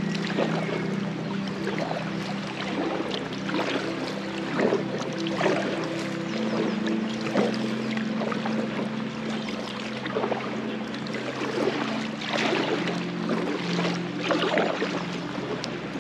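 Water splashing and rushing around an inflatable packraft on a flowing river, with irregular short splashes about once a second. Background music with held low notes that shift every few seconds runs underneath.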